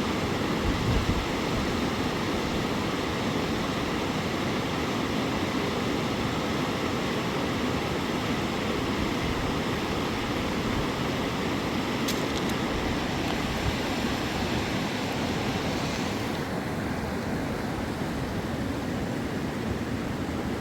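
Steady rushing of flowing river water, an even hiss that turns duller about sixteen seconds in.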